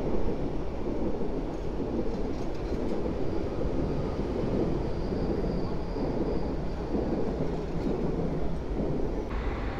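Koleje Mazowieckie electric multiple unit passing close beneath, with a steady rumble of wheels on the rails. A faint high whine is heard for a few seconds in the middle, and the upper hiss falls away near the end as the train draws off.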